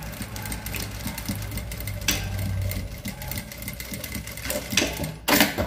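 Electric sewing machine stitching satin bias tape onto tulle, running with a steady motor hum and rapid needle strokes that stop about three seconds in. A few sharp clicks and knocks follow near the end.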